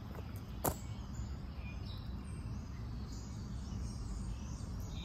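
Outdoor background noise: a steady low rumble with a few faint bird chirps. One sharp click comes about two-thirds of a second in.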